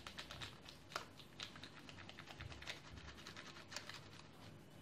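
Faint crinkling and light tapping of a baking powder packet as it is shaken out over flour: a run of small quick ticks, with a sharper click about a second in and another near the end.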